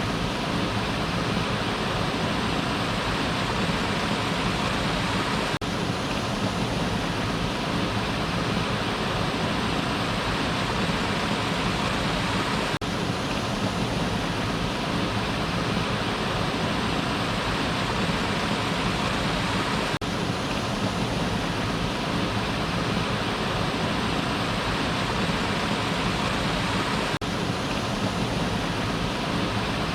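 Waterfall rushing: a steady, even roar of falling water with no change, with a faint tick about every seven seconds.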